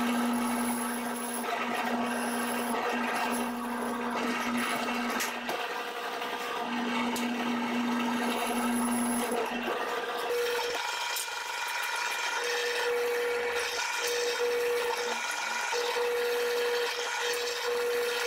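Drill press running and boring holes in small maple pieces. Its steady motor hum breaks off and comes back several times, and shifts to a higher pitch about ten seconds in.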